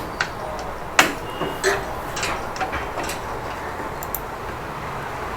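Plastic clicks and snaps from the control-board panel of a Siemens washing machine as its retaining clips are pressed free with a small screwdriver, the loudest snap about a second in followed by several lighter clicks.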